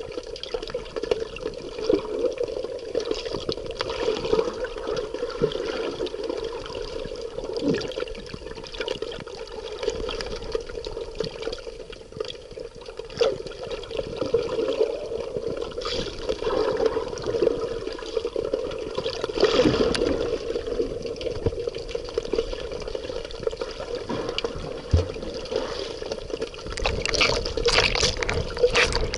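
Water running and splashing, with an irregular rise and fall in loudness.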